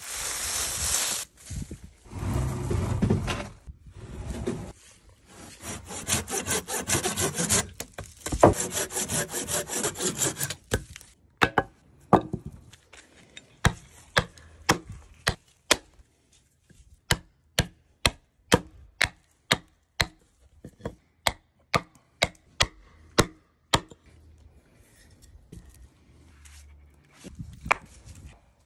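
Hand saw cutting through a dogwood branch in several spells of rapid strokes. After about eleven seconds come many sharp, separate chopping strikes into the wood, about one or two a second, as the dogwood stick is shaped into a wedge.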